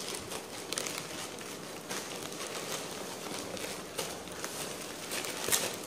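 Scissors cutting into a plastic courier mailer: the plastic crinkles and rustles, with several sharp snips of the blades.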